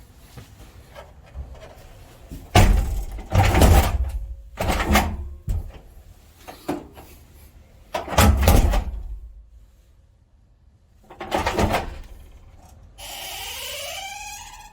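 A heavy front door being opened and shut several times, each closing a loud thud. Near the end a pitched squeak rises in pitch for about a second and a half.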